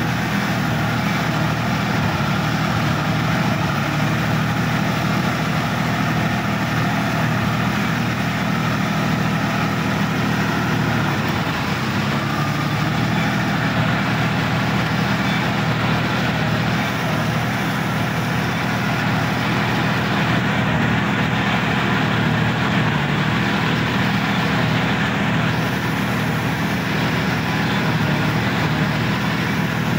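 Sonalika tractor's diesel engine running steadily, heard from the driver's seat as the tractor works through a flooded, muddy paddy field. The engine note dips briefly about eleven seconds in.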